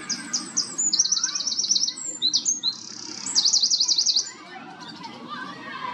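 A songbird singing one loud, varied song of rapid high trills and repeated notes, about four seconds long, ending abruptly.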